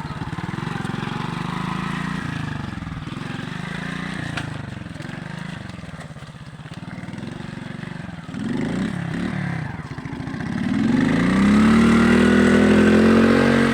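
Alpha moped engine running under throttle, its pitch rising and falling as the rider revs it, then revving up hard and loud from about 11 seconds in to the end.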